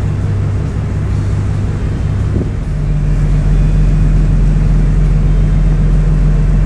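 A large engine running steadily with a deep, low hum that gets a little louder about three seconds in.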